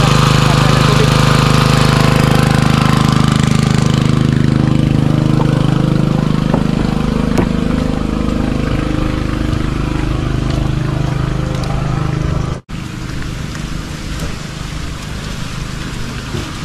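Small portable petrol engine water pump running steadily, growing fainter over the first several seconds. About twelve and a half seconds in, the sound cuts out for a moment, and a quieter steady noise follows.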